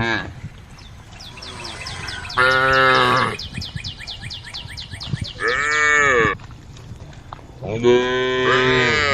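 Cows mooing: three loud, drawn-out moos about three seconds apart, each lasting about a second. A quick run of high chirps sounds between the first two moos.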